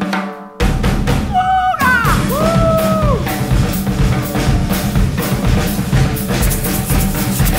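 Drum kits playing with music, starting with a sudden loud hit about half a second in. A held tone slides down a couple of seconds in, and a fast, even high rhythm such as hi-hat or shaker joins near the end.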